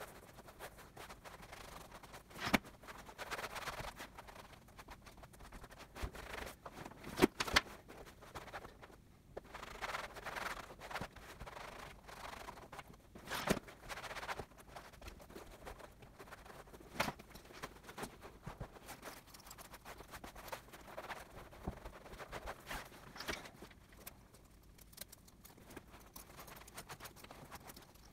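Cloth rag rubbing and wiping over a leather jacket, soft scuffing in stretches, with a few sharp knocks scattered through, the loudest about seven seconds in.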